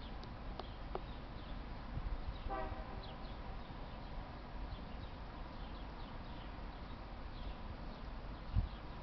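Faint outdoor ambience with a low rumble and small high chirps of birds repeating throughout. A brief pitched toot, like a distant horn, sounds about two and a half seconds in, and a low thump comes near the end.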